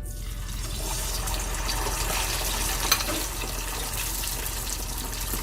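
Chicken wingettes deep-frying in a small pot of very hot oil (about 425°), a steady sizzle from pieces just added to the oil. One sharp click about three seconds in.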